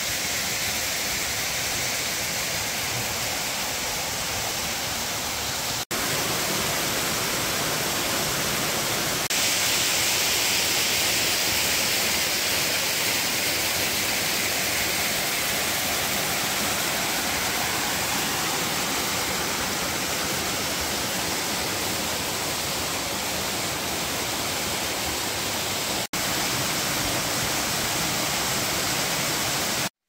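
Waterfall and creek cascades: a steady rush of falling water. It grows louder and brighter about nine seconds in, and breaks off for an instant about six seconds in and again near the end.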